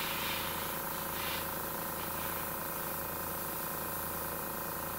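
Airbrush spraying paint with a steady hiss of air, over the steady hum of its air compressor running.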